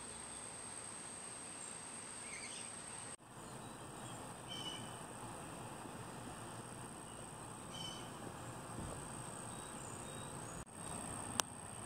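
Outdoor summer ambience: a steady high-pitched insect drone over a low hiss, with a few faint bird chirps. The sound drops out briefly twice, and there is a sharp click near the end.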